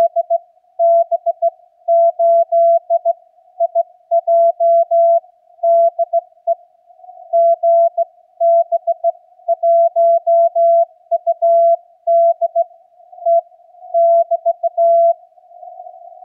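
Slow Morse code (CW) received on a Yaesu FTDX10 transceiver: a single mid-pitched tone keyed on and off in dots and dashes as the other station, GB1UDE, sends, over faint hiss from the radio's narrow CW filter. The tone stops about a second before the end, leaving only the hiss.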